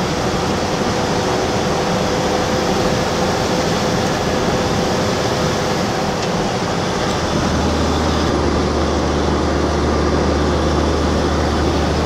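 Steady running noise of a vehicle's engine heard from inside its cab, with a deeper engine drone growing stronger about seven and a half seconds in.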